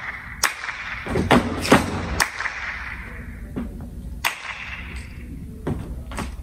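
Sharp hand claps echoing in a large hall, several at uneven intervals, cueing a fencer's advance and lunge, with the thuds of sneakers stepping and landing on a hard floor.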